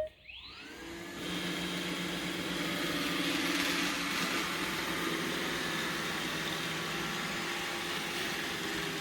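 iRobot Roomba 960 robot vacuum starting a cleaning run: its motor spins up with a rising whine in the first second, then it runs steadily.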